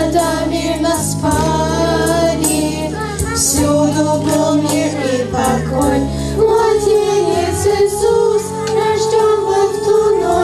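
Two young girls singing a song into microphones, with instrumental accompaniment underneath.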